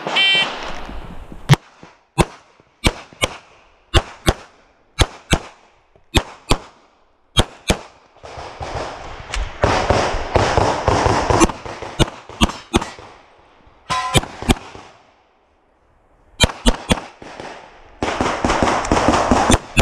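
A shot timer beeps once, then a handgun is fired again and again, mostly in quick pairs of two shots per target. Between strings come scuffing footsteps and movement noise as the shooter moves through the stage.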